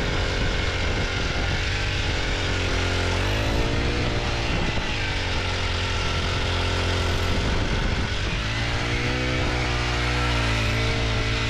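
Cordless drill driving a long ice auger down through deep snow: a steady motor drone whose pitch sags and recovers as the bit loads up, about three seconds in and again around eight seconds.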